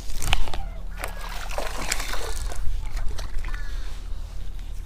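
A hooked bass splashing and thrashing at the water's surface beside the boat as it is reeled in and grabbed by hand. There are several irregular splashes, the loudest about a third of a second in, thinning out after about three seconds.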